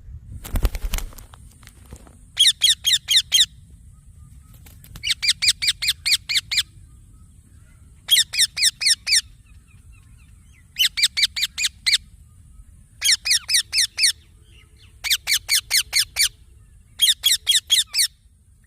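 Young Indian ringneck parakeet calling in bursts of rapid, high, repeated chirps, about seven notes in a second per burst, seven bursts spaced two to three seconds apart. A brief thump sounds just after the start.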